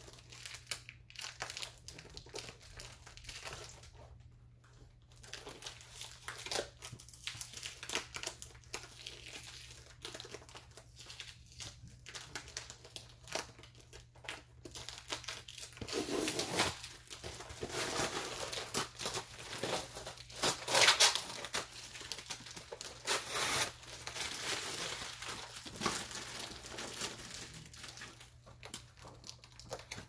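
Packing tape being picked at, peeled and torn off a cardboard shipping box by hand, with crinkling and ripping. The tearing gets busier and louder about halfway through.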